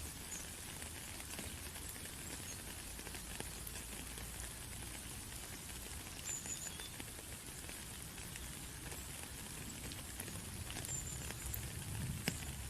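Steady patter of water, with scattered light drips and a few faint, brief high bird chirps about halfway through and near the end.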